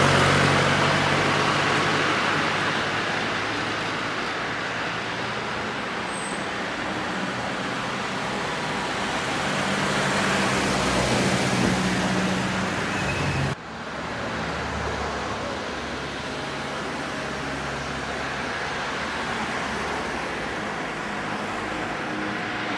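Road traffic noise with a motor vehicle engine running steadily. The sound cuts off abruptly about halfway through and resumes at once.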